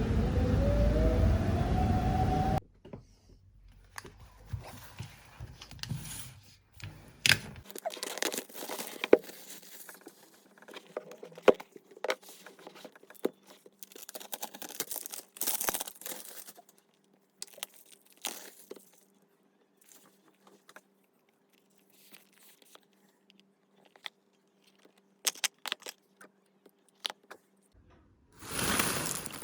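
Packaging being opened and handled: tearing, crinkling and scattered clicks and taps of paper and plastic, typical of unboxing a tablet. Background music cuts off about two and a half seconds in.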